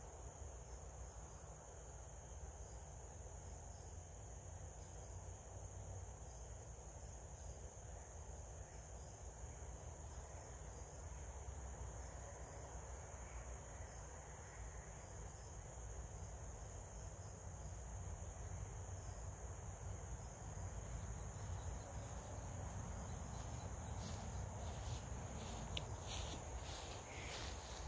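Faint, steady chorus of insects in the evening with a low rumble underneath. Over the last several seconds comes a run of sharp clicks.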